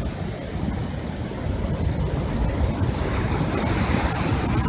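Ocean surf washing against coastal rocks, a continuous rush of water with wind buffeting the phone microphone; the hiss of the surf grows louder about three seconds in.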